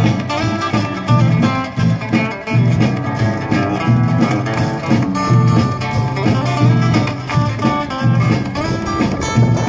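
Instrumental break of an upbeat country-style song: acoustic guitar playing over a steady bass beat.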